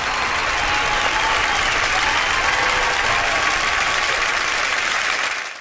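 Crowd applause, a steady dense clapping that fades out at the end.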